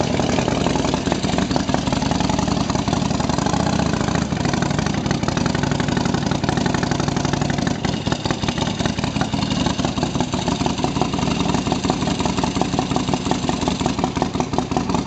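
Custom Harley-Davidson chopper's V-twin engine idling with a steady pulsing beat, easing off a little about eight seconds in.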